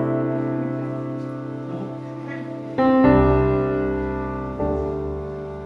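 Background music of slow keyboard chords, each held and left to fade, with a new chord struck about three seconds in and another about four and a half seconds in.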